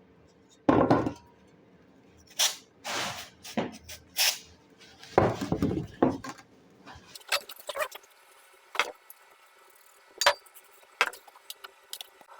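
Glue residue being cleaned off a metal chimney fitting with foam-gun cleaner: a few short hissing bursts and rubbing, then scattered light clinks of metal parts being handled.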